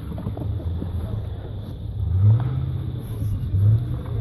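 Engine of a 4x4 SUV revving as it drives up a snowy slope, the revs swelling twice: about two seconds in and again near the end.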